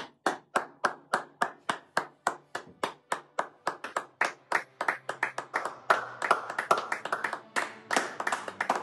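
Hand clapping: a steady beat of about three claps a second that grows denser and less even about halfway through.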